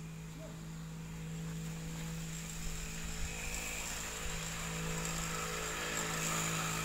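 A steady low hum over a faint hiss, with no distinct events.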